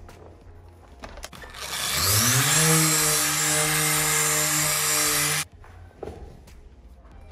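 Electric rotary polisher spinning up with a rising whine, running steadily for about three and a half seconds, then cutting off abruptly.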